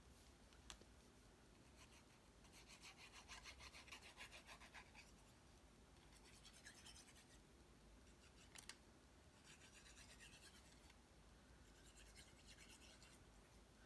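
Faint, quick rubbing strokes on paper card stock in four short bursts, with two light taps.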